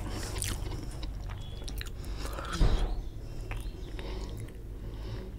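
Close-miked eating sounds: wet crackles and clicks of fingers working rice and chewing, with one loud knock a little over two and a half seconds in. Then thick chicken curry is poured from a glass bowl onto the rice.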